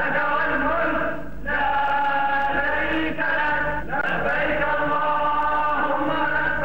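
A man's voice chanting in long, melodic phrases, each note held steady, with short breaks between three phrases.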